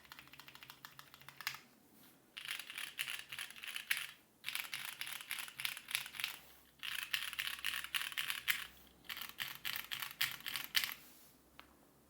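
Fast typing on a plateless mechanical keyboard with stock Gateron Yellow linear switches and GMK keycaps: runs of rapid key clacks broken by short pauses, ending about a second before the end with a couple of last taps.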